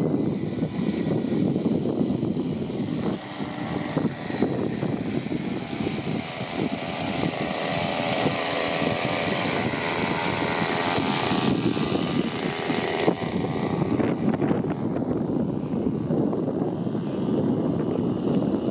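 A radio-control scale Chipmunk's 25cc petrol engine and propeller running in flight. It grows louder about four seconds in and drops away suddenly a little past the two-thirds mark. Wind buffets the microphone throughout.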